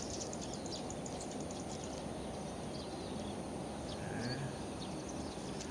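Steady outdoor background hiss with insects chirping: a rapid high ticking that thins out after the first second or so, and a faint short chirp about four seconds in.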